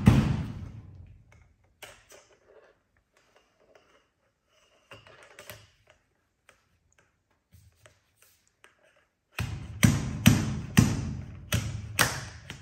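Sharp metallic knocks on a piston wrist-pin circlip installation tool as the clip is driven into the tool's sleeve with a wrist pin: a few light taps, then a quick run of about eight hard knocks in the last three seconds.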